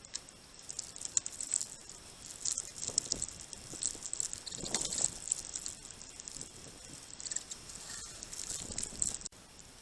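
Small birds at a feeder pecking at seed: irregular light taps and clicks, which cut off suddenly near the end.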